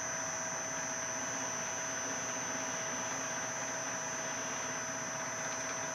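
Metal lathe running steadily while a center drill in the tailstock drill chuck cuts into the end of a steel bar: an even whir with a constant high whine over it.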